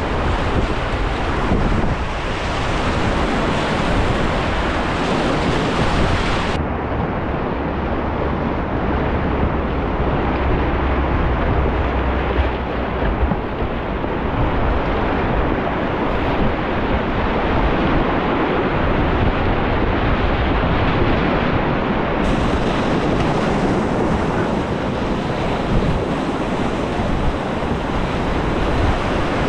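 Whitewater rapids rushing and splashing around a kayak, heard close up from the boat. A low buffeting of wind on the microphone runs under it for part of the time.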